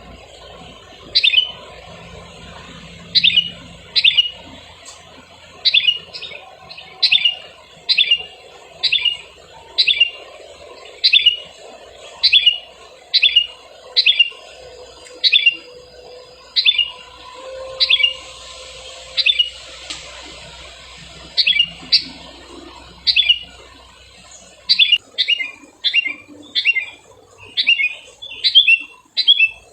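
Decoy bird calling for lure-trapping, a series of short, sharp chirps repeated about once a second. The chirps come faster and closer together near the end.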